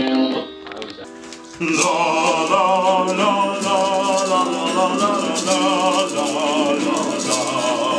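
Several voices singing loudly together over a strummed acoustic guitar, with maracas shaken in rhythm. The sound drops briefly from about half a second in, and the song comes in full at about a second and a half.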